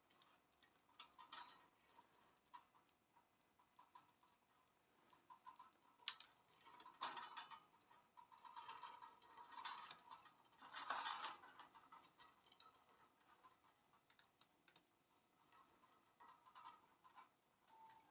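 Faint clicking, scratching and soft chirps from budgies at play, in scattered bursts that are busiest in the middle.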